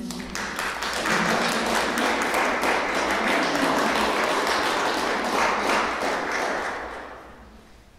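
Audience applauding, swelling about a second in, then dying away near the end.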